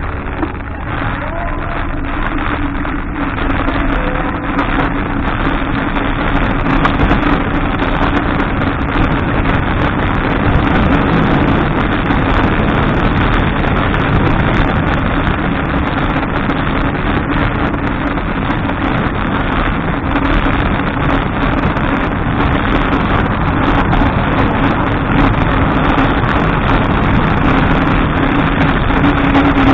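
Wind rushing over the microphone of a bicycle-mounted camera and road noise while riding on asphalt, with a steady low drone underneath. It grows louder over the first few seconds as speed picks up, then stays even.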